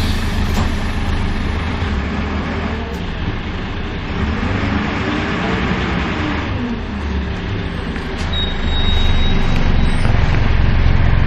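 Karosa B931 city bus driving, heard from inside the passenger cabin: the Renault MIHR diesel engine's low drone under road and body noise. From about eight seconds in the engine pulls harder and gets louder, and a thin high whistle sounds for a couple of seconds.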